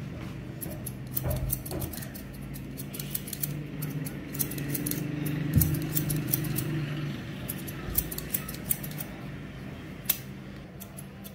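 Steel haircutting scissors snipping through hair, in quick runs of several sharp snips with short pauses between.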